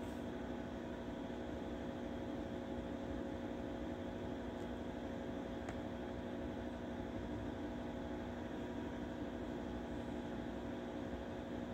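A steady machine hum with several steady low tones over an even hiss, unchanging throughout; two faint clicks about halfway through.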